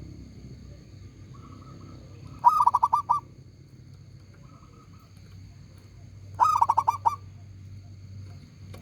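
Local zebra dove (perkutut) singing twice, about four seconds apart. Each phrase is a soft opening note followed by a quick run of about six loud coos.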